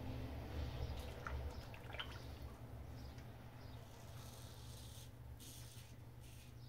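Gem Micromatic Open Comb single-edge safety razor scraping through lathered stubble on the cheek: faint short crackly strokes with a few small clicks, clearest near the end, over a low steady hum.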